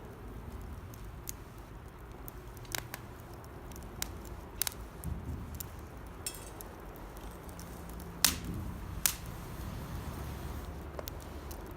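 Wood campfire crackling, with sharp pops and snaps at irregular intervals, the two loudest about eight and nine seconds in. The firewood is wet, which makes it pop.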